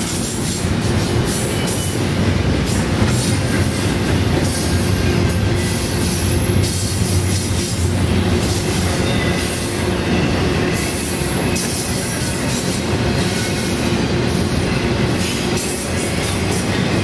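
Long freight train rolling past close by: a steady rumble of steel wheels on the rails with irregular clatter and a thin, steady squeal from the wheels.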